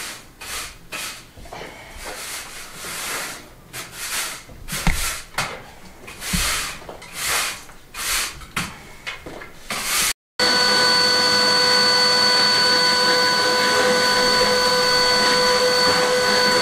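A broom sweeping a dusty bare floor in irregular strokes. After a cut about ten seconds in, a Numatic Henry vacuum cleaner runs steadily with a whine.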